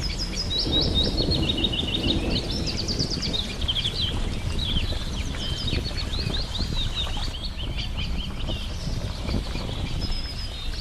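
Several small songbirds chirping and singing, with quick repeated chirps and short trills overlapping throughout, over a steady low rumble of background noise.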